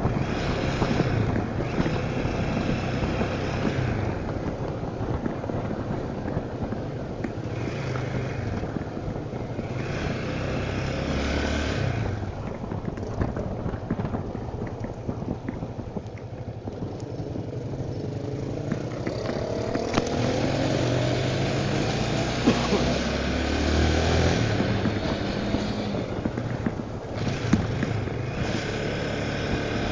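Italika Tornado 250 motorcycle's single-cylinder engine running while riding, its pitch rising and falling with throttle and gear changes, with a rising rev in the middle.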